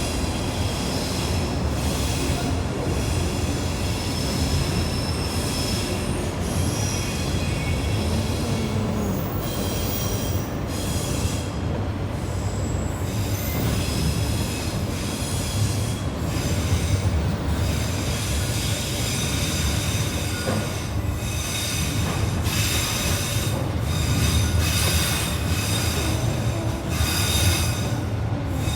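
Train running on the rails with a steady low rumble, and high thin wheel squeal that comes and goes.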